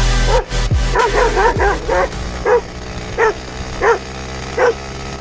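A dog barking repeatedly, about one short bark every second or less, alongside a moped. Under the barks the moped's engine runs steadily.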